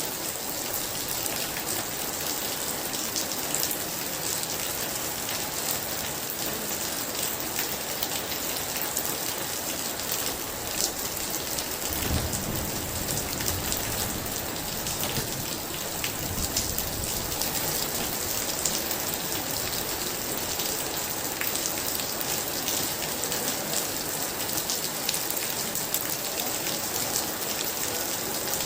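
Heavy rain falling steadily, with fine drop ticks through the hiss. About twelve seconds in, a low rumble of thunder rolls for a few seconds.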